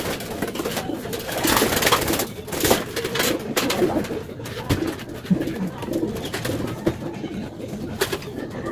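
Racing pigeons cooing in the loft, with bursts of wing fluttering and knocks as one bird is caught by hand.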